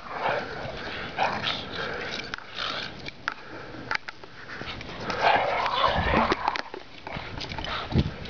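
Two beagles playing rough in the snow, with irregular bursts of play vocalizing and scuffling that are loudest a little past halfway. A thump comes near the end.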